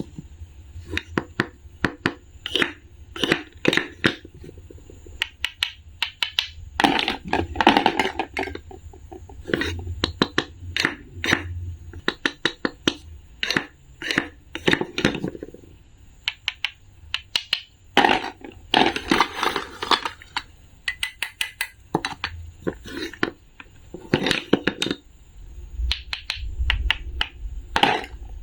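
Rapid, irregular series of sharp clicks, taps and crunches, as of small hard objects being handled, knocked together or crushed, coming in clusters with brief pauses between them.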